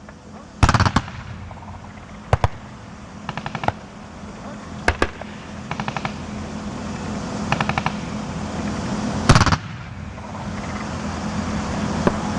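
Distant automatic gunfire from turret-mounted machine guns on armoured vehicles, fired in short bursts of a few rounds every second or two, the loudest burst about nine seconds in. Under the shots a low steady rumble grows louder.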